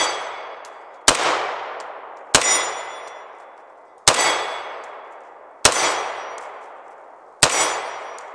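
Bersa TPR9 full-size 9mm pistol fired five times at a slow, even pace, about one shot every one and a half seconds, each sharp report followed by a long fading tail.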